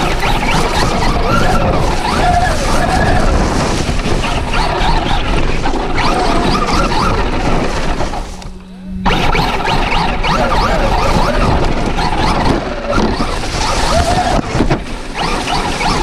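Onboard sound of a Traxxas Rustler 4x4 RC truck running a Castle Sidewinder 4 brushless system on 3S, driven hard: motor and drivetrain whine rising and falling with the throttle over the rush of tyres through dry leaves and dirt. About eight and a half seconds in, the noise briefly drops to a low steady hum before it picks up again.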